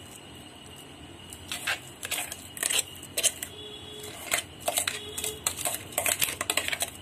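A spoon scraping and tapping as ground coconut and sugar is scooped out of a mixer-grinder jar into a bowl of rice flour: a quick, irregular run of clicks and scrapes that starts about a second and a half in.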